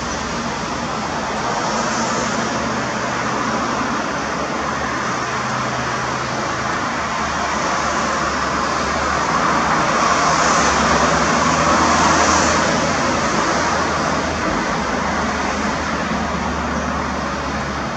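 Steady engine and traffic noise, swelling about ten seconds in and easing off again after about twelve seconds.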